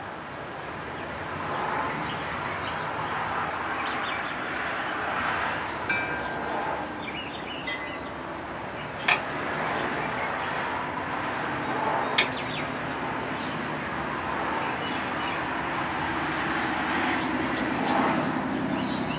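Wood-fired camp stove burning in the wind: a steady rushing noise with sharp pops about six, nine and twelve seconds in. A few short ringing tones sound around six seconds in.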